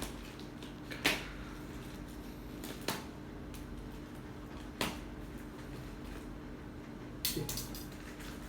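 A parcel being opened and handled by hand: scattered sharp crackles and knocks, with a quick cluster of them near the end, over a steady low hum.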